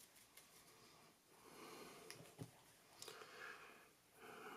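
Near silence: faint breathing near the microphone, three soft breaths, with a couple of faint ticks.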